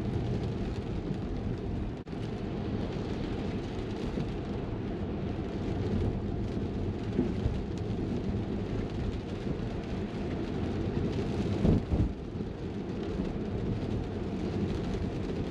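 Cabin noise of a Tesla driving on a wet road in the rain: a steady low rumble of tyres and rain on the car, with a brief louder swell about twelve seconds in.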